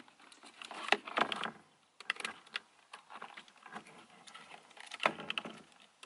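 Sharp plastic clicks and rattles from a Nissan 350Z door switch panel as its retaining clips are pushed with a flathead screwdriver to pop the switch unit out: a few spread-out clicks, a cluster around two seconds in and another about five seconds in.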